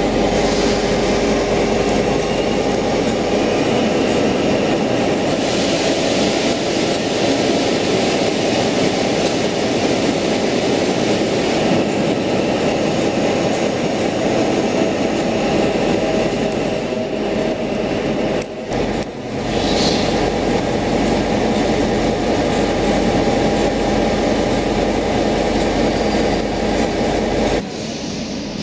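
Electric commuter train moving along an underground station platform: a steady, loud rumble of running and wheel noise. About 27 seconds in, it gives way to a quieter hum.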